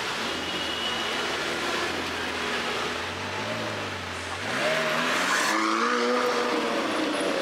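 McLaren 720S's twin-turbo V8 running low and steady, then revving up about four seconds in as the car pulls away, its pitch rising quickly and the sound getting louder.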